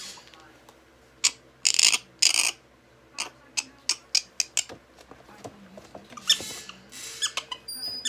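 An agitated female prairie dog in her first heat being handled in a fleece blanket and put into a wire cage: a string of sharp clicks and scuffles, two short noisy rushes about two seconds in, another a few seconds later, and faint high chirps just before the end.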